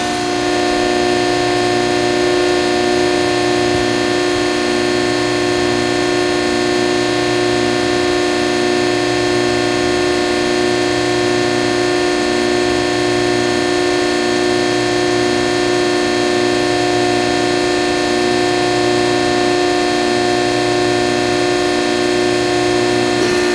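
Hydraulic power unit of a Standard Industrial AB325-12 CNC press brake running with a steady hum, several held tones over a regular low pulsing.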